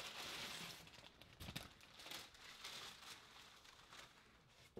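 Faint rustling and crinkling of tissue paper being pulled out of a cardboard shoebox, loudest in the first second and fading away.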